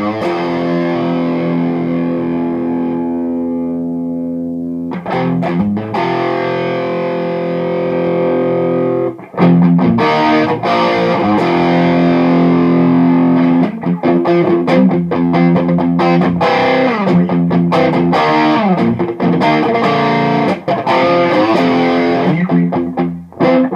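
Electric guitar played through a Mesa/Boogie DC-5 tube amp, overdriven with the guitar's volume turned back up. Chords are left ringing and fading at first, then from about a third of the way in come louder strummed chords and riffs.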